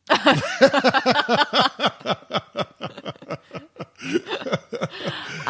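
People laughing: a run of quick repeated bursts of laughter that thins out about halfway through.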